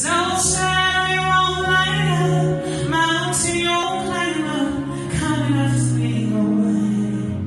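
A solo gospel singer sings long held notes over sustained low accompaniment chords, with new phrases starting about three and five seconds in.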